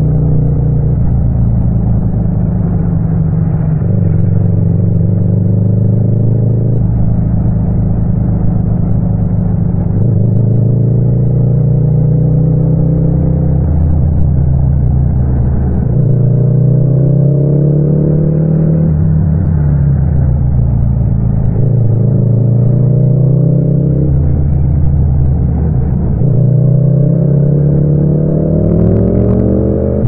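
Yamaha MT-07's 689 cc parallel-twin engine pulling through the gears under way. Its pitch climbs steadily, then drops at each upshift, several times over.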